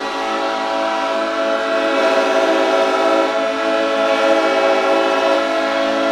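Superyacht horns sounding long held blasts as a farewell salute. Several horns at different pitches overlap into a continuous chord that shifts as blasts start and stop.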